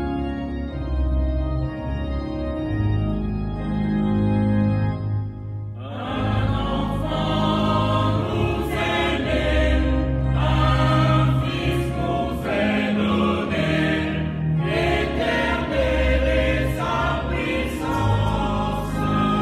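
An organ plays sustained chords as an introduction, then about six seconds in a choir comes in singing a hymn with the organ accompanying.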